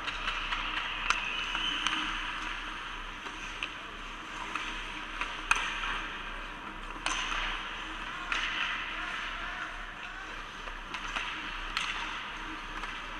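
Ice hockey play in an arena: skate blades scraping and hissing on the ice, with a handful of sharp clacks of sticks and puck.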